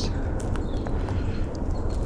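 Light crackles of footsteps and movement in dry woodland leaf litter over a steady low rumble.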